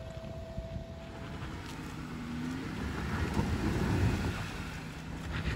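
Jeep Wrangler engine running at low crawling speed on a rough dirt trail, growing louder toward the middle as the Jeep comes closer, then easing slightly.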